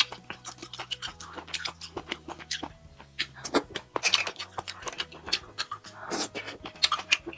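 Wet eating sounds of small abalone in red chili oil: rapid lip smacks, sucking and chewing clicks, thickest in the second half.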